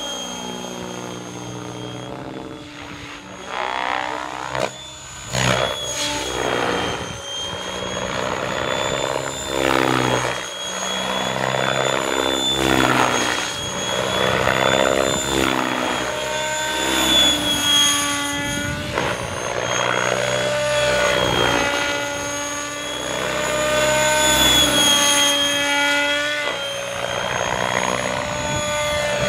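Radio-controlled model helicopter in flight: a steady high whine from the motor and rotor that swells and fades and slides up and down in pitch as it manoeuvres.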